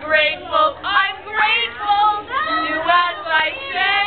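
Two girls singing together loudly, phrase after phrase.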